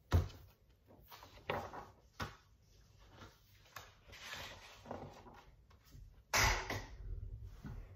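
A picture book being handled and opened: a sharp knock right at the start, a few lighter taps, then paper rustling as the cover and pages are turned, loudest about six seconds in.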